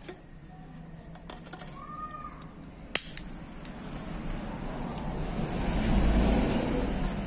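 Plastic bottle cap pulled off a Yakult bottle with two sharp clicks about three seconds in. Then a rushing noise with a low rumble swells, peaks about six seconds in and eases off.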